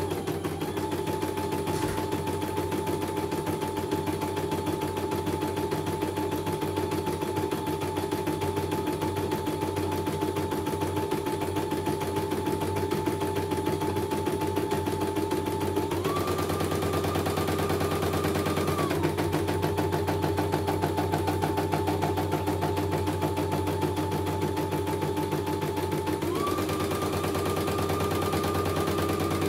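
CNY computerized embroidery machine stitching a design, its needle hammering rapidly over a steady motor whine that steps up in pitch twice, for about three seconds midway and again near the end. It is a test run in which the machine is running smoothly with no fault.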